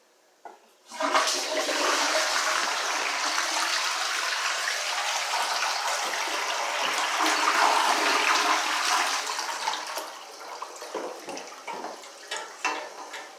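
Toilet flushing: a short click, then a loud rush of water for about nine seconds that breaks up into uneven splashing near the end.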